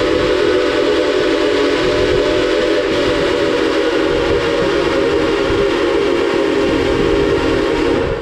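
The steam whistle of C&O 2-6-6-2 locomotive No. 1309 blowing one long, steady chord of several tones, which cuts off suddenly near the end, over the low rumble of the moving train. It is sounding for a road crossing just ahead.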